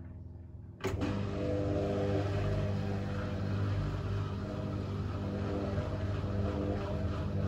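Hotpoint Ultima Extra WMA64 washing machine in a wash cycle: about a second in, a click and its new drum motor starts, then runs steadily with a hum as the wet, sudsy load tumbles in the drum.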